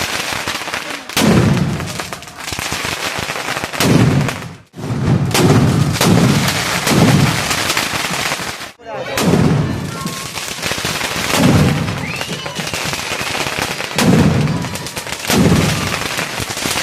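Fireworks going off in quick succession during Kali Puja celebrations: repeated deep booms, about one a second, with dense crackling and sharp bangs between them.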